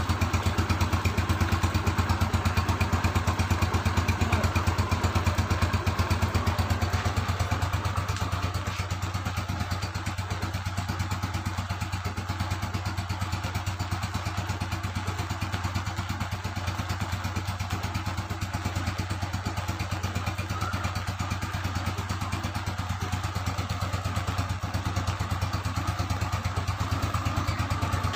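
A Yamaha Nouvo scooter's single-cylinder four-stroke engine running steadily with a fast, even pulse and no revving.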